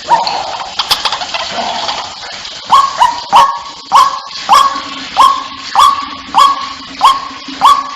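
White-breasted waterhen calling, used as a hunting lure call. A jumble of harsh notes comes first. From about three seconds in, the same loud call repeats steadily, nearly two a second, each call sharp-edged with a short falling slide.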